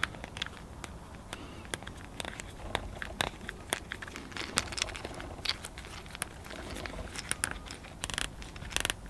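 Plastic screw collar of a low-voltage landscape lighting cable connector being twisted tight by hand, giving many small irregular clicks and creaks as it tightens.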